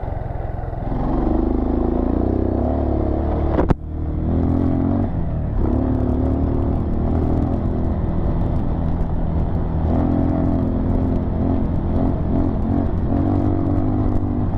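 Dirt bike engine running under way on a sandy trail, its revs rising about a second in. A sharp knock near four seconds in is followed by a brief drop in the engine sound before it runs steadily again.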